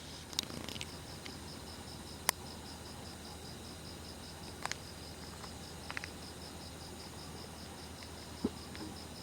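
Night insect chirping: a rapid, evenly pulsed high chirp that keeps on steadily, with a few sharp clicks scattered through it, the loudest about two seconds in.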